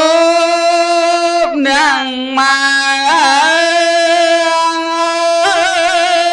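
A single voice chanting Khmer smot, the melodic style of Buddhist recitation: long held notes, broken by quick wavering turns about two seconds in, three seconds in and near the end.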